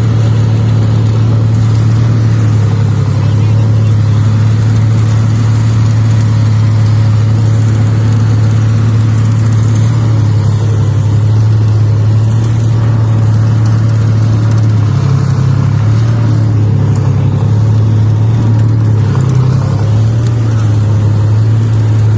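T-55 tank's V-55 V12 diesel engine running loudly and steadily under way, with a couple of brief changes in note in the second half.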